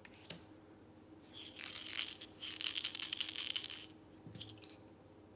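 Tarot cards being shuffled by hand: two quick runs of rapid card flicks, the first about a second in and the second just after it.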